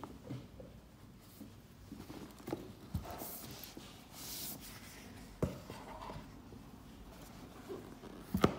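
Hands handling a cardboard storage box and lifting off its lid: cardboard rubbing and scraping, with a swish partway through and a few light knocks, the loudest near the end.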